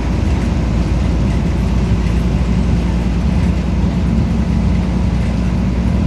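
Volvo B340M bus's diesel engine running with a steady low drone.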